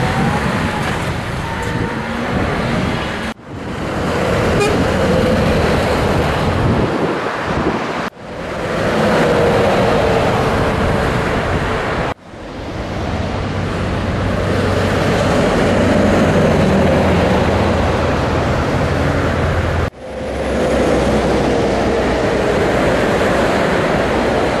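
Scania V8 truck engine pulling on the road, its note rising steadily between gear changes. The sound drops out sharply four times, about 3, 8, 12 and 20 seconds in, and builds again after each.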